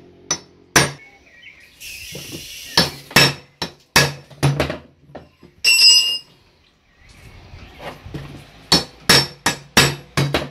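Hammer blows on a hardened steel center punch, made from a ground-down Allen key, driving into a crimped steel terminal on a handbrake cable held in a bench vise. About a dozen sharp metal strikes come in irregular groups, with one ringing clang near the middle. The blows compact the terminal into the cable strands so it will not slip under brake load.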